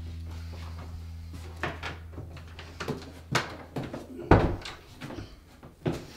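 Door handling: a few knocks and clicks at the lock and handle, then one heavier thump about four seconds in as the door shuts, with a footstep on the stairs near the end. A low held music drone underneath fades out at about the time of the thump.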